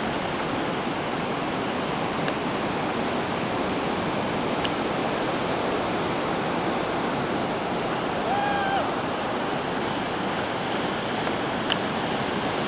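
Ocean surf washing on a beach: a steady rushing hiss. About eight seconds in, a brief pitched sound lasts half a second.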